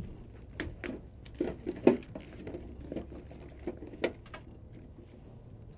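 Handling noises: an irregular run of small clicks, taps and rustles from objects moved by hand. The loudest tap comes about two seconds in, and the sounds die away after about four and a half seconds.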